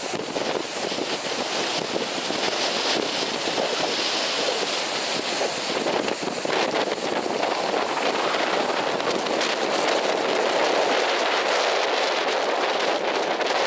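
Rough sea surf breaking and washing against a rock breakwater in a steady, swelling rush, with wind buffeting the microphone.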